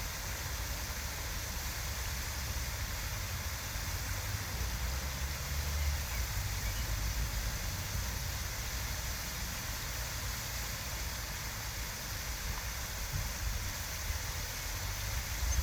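Steady outdoor noise: an even hiss with a low, unsteady rumble underneath that swells about five seconds in and again near the end.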